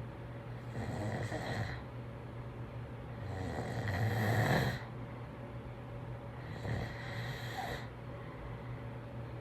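Snoring: three snores about three seconds apart, the second the loudest, over a steady low hum.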